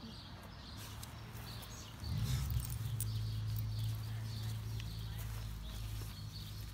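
Two puppies, a beagle and a basset hound, wrestling on grass: scuffling, rustling and small clicks of paws, bodies and harness gear. From about two seconds in, a steady low rumble comes in under it.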